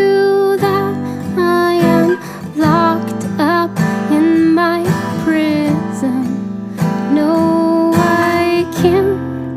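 Live acoustic band music: strummed acoustic guitar under a sliding melodic lead line with bent notes.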